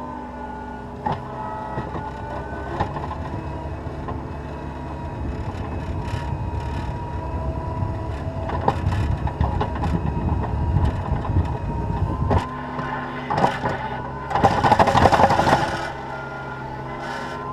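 Cat 236B skid steer loader's diesel engine running, labouring harder through the middle as it pushes snow, with scattered knocks and clanks. About two thirds of the way in there is a loud harsh burst of noise lasting a second or two.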